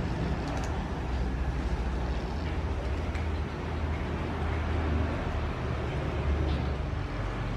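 A steady low rumble, with a few faint clinks of a metal ladle against a stainless steel pot as leafy greens are stirred.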